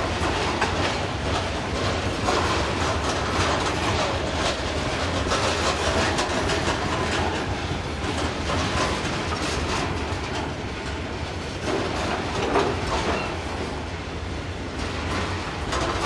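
Freight train of EWS bogie hopper wagons rolling past, wheels clattering over the rail joints with a steady rumble.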